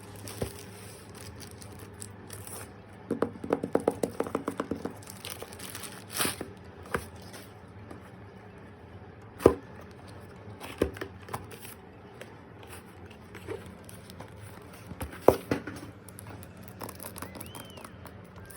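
Perfume packaging being handled and opened: tearing and crinkling of wrapping, a quick run of about a dozen clicks a few seconds in, and a few sharp knocks against the box or bottle, the loudest about halfway and near the end.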